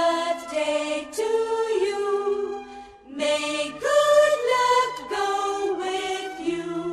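Voices singing a tune in long held notes, choir-like.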